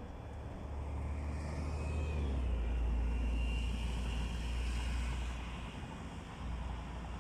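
A vehicle passing by: a low rumble with a faint whine on top that swells over the first few seconds and fades away about five seconds in.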